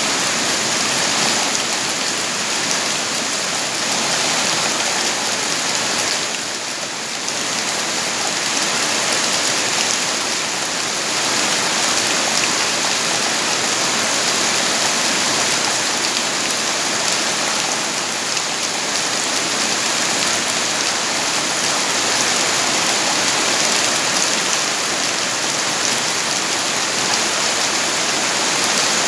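Steady heavy rain, a dense even hiss of falling drops with a brief lull about seven seconds in.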